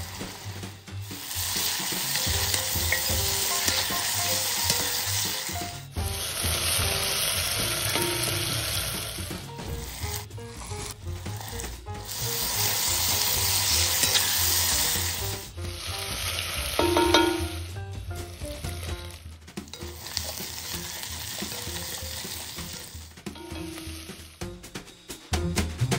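Onions, vegetables and herbs sizzling in oil in a pot while a wooden spatula stirs them. The sizzle breaks off and starts again several times.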